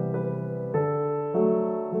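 Background piano music: slow, sustained notes, with a new note or chord struck twice.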